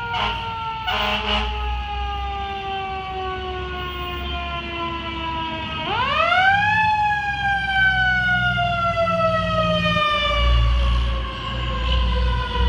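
Fire ladder truck's mechanical siren coasting slowly down in pitch, wound up sharply again about six seconds in, then coasting down once more. Two short bursts of noise come near the start, and the truck's engine rumble grows louder as it passes near the end.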